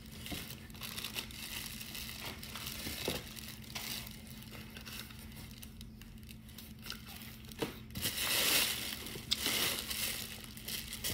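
Packaging crinkling and rustling as items are handled and pulled out of a box, faint at first and louder for about two seconds around eight seconds in.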